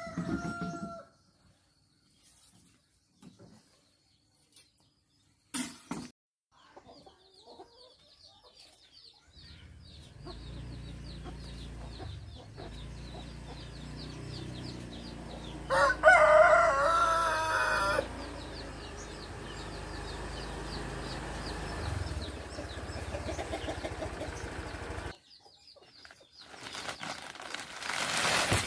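A rooster crows once, about halfway through, for about two seconds: the loudest sound. Around it runs a high, rapid chirping, with a noisy rustling near the end.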